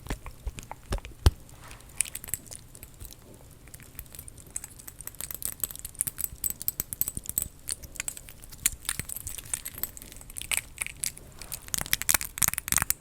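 Close-miked ASMR tapping and handling of small props: a quick, irregular run of crisp clicks and taps with crinkly rustling, denser from about two seconds in and again near the end.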